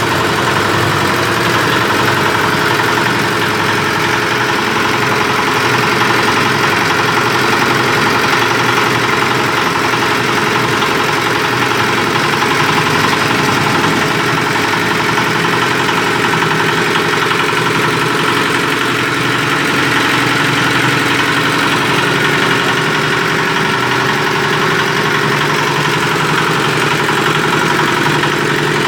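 Industrial mixer machine, rated 50–150 kg per hour, running steadily at a constant speed.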